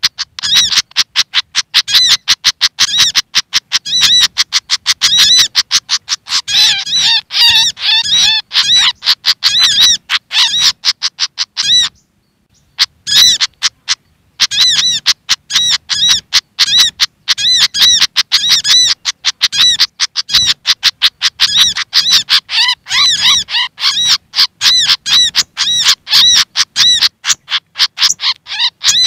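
Bird-luring recording of agitated Malaysian pied fantail calls combined with brown-throated sunbird calls: a fast, continuous string of short, sharp, high chirps, a few a second. They stop for about two seconds near the middle, then carry on.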